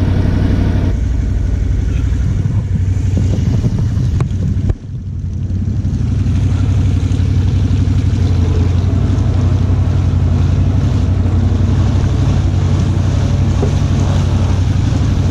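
ATV engine running steadily close by, a low, even hum with no change in speed. There is a brief drop in the sound about five seconds in.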